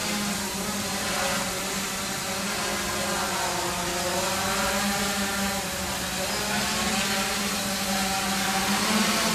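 Quanum Venture quadcopter's motors and propellers buzzing in flight, the pitch rising and falling as the throttle changes while it hovers and comes down.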